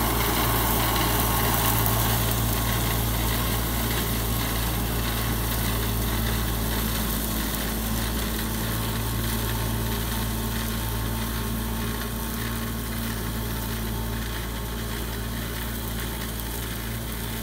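Battery-electric Rino ride-on tool carrier running its front flail mower through tall grass: a steady machine hum with a few held tones over the hiss of the rotor. It fades slowly as the machine moves away.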